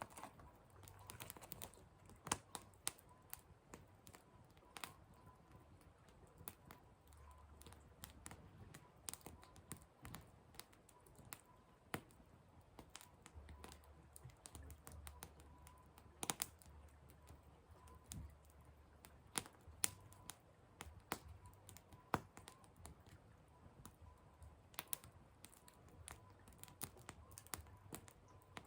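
Wood fire crackling: irregular sharp snaps and pops of burning firewood, a few louder than the rest.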